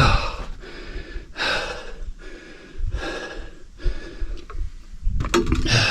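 A man breathing heavily near the microphone: several loud breaths about a second and a half apart.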